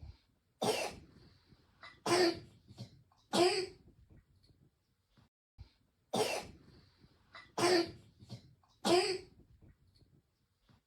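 A child with croup giving a harsh, barking, seal-like cough: six coughs in two bouts of three. The bark comes from inflammation of the voice box.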